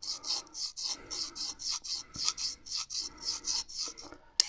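Mora Garberg's Scandi-ground bevel stroked back and forth on the ceramic side of a Fallkniven DC4 pocket whetstone: a rasping scrape at about four strokes a second, stopping shortly before the end, then a single click.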